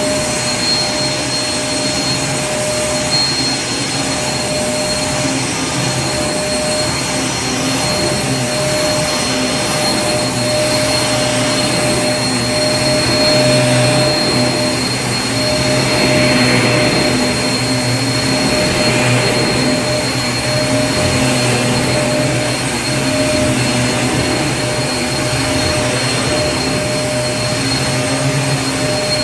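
Vacuum cleaner running steadily: an even rushing noise with a constant hum and a thin high whine, swelling slightly a few times.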